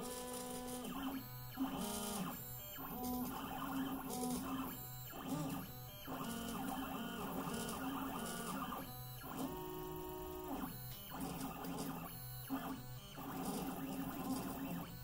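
Stepper motors of a Mostly Printed CNC (MPCNC) driving a pen plotter head through its moves. They give a singing whine in steady tones that jump to a new pitch with each move, with short breaks between moves.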